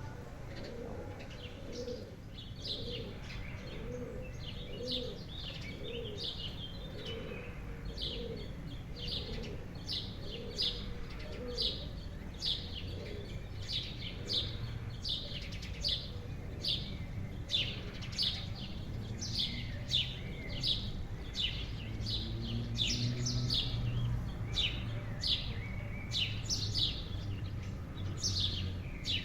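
Garden birdsong: a steady series of short, falling chirps, about one or two a second. Lower repeated notes come in the first third.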